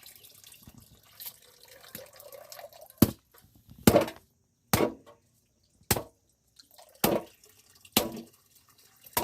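A series of sharp, loud knocks, about one a second, starting about three seconds in, each with a short ringing tail, over faint running or dripping water.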